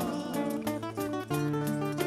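Two acoustic guitars playing an instrumental passage, a melody of stepping notes over strummed chords.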